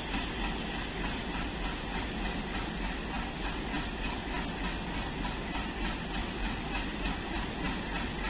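Steady rain with a diesel train locomotive running at a low, steady hum beneath it.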